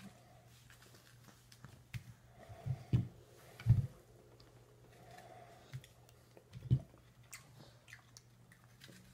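A toddler biting into and chewing a piece of soft red-skinned fruit: wet mouth sounds and small clicks, with three dull thumps at about three, three and a half and nearly seven seconds in, over a steady low hum.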